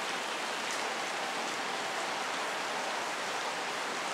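Steady rain falling, an even hiss with no distinct drops or knocks.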